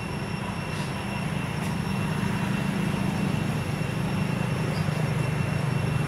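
A steady low mechanical drone, like a motor running, that grows a little louder about two seconds in, with a thin steady high tone above it.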